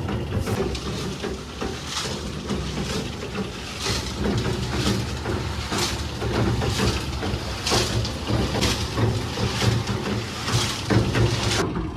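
Machinery running with a steady low hum and repeated clattering knocks, roughly one a second.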